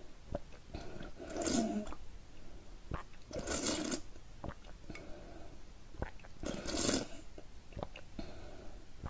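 A person slurping liquid from a glass bowl held to the lips: three loud slurps about two to three seconds apart, with small wet mouth clicks and swallows between them.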